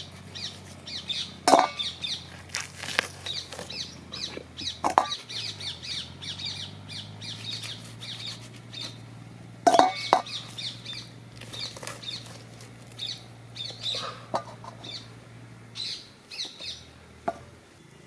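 Small birds chirping repeatedly, with a few sharp knocks (knife and hands working a steel bowl) and a steady low hum underneath.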